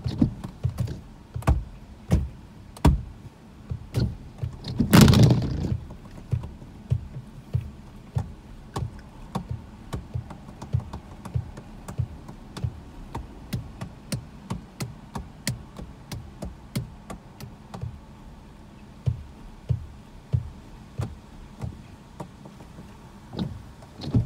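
Scattered raindrops tapping irregularly on a car's windshield and roof, heard from inside the car. The windshield wiper sweeps across the glass at the start and again near the end, and there is a louder rushing burst about five seconds in.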